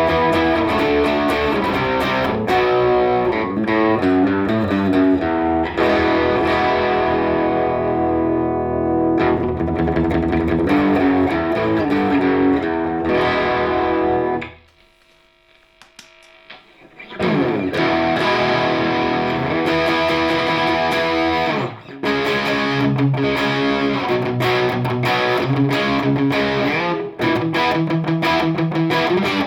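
Eastcoast TM HH Telecaster-style electric guitar played through a distorted amp, a run of riffs and chords that stops for a couple of seconds about halfway through and then picks up again.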